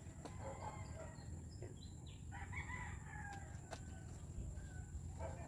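A rooster crowing once, faintly, about two and a half seconds in, for about a second. A couple of sharp clicks follow just after it.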